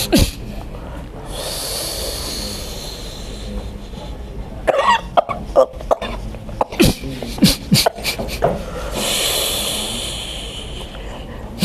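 A woman coughing in a string of short, harsh bursts, between two long breathy hisses of breath. The cough is long-standing.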